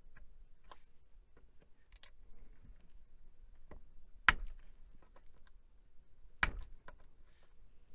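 Small clicks and taps of hands and tools working on a laptop's internal parts and cable connector, with two louder sharp clicks about two seconds apart past the middle.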